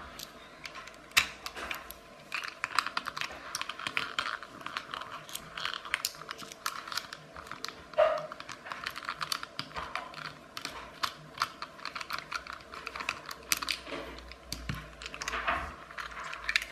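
Irregular small clicks and taps of a clockwork toy's clear plastic engine parts being handled and worked with a small precision screwdriver, with a sharper click about a second in and another about halfway.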